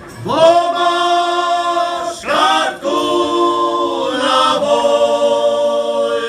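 A group of folk singers singing a Slovak folk song together in long, drawn-out notes, with a brief break and a swoop in pitch about two seconds in.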